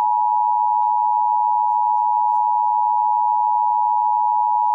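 Emergency Alert System attention signal sounding for a broadcast station's required monthly test: a loud, steady two-tone alarm (853 and 960 Hz) with no break.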